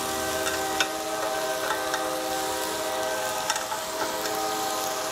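A train horn sounds one long steady chord-like blast, fading near the end. Under it, food sizzles in a cast-iron grill pan and metal tongs click a few times against the pan.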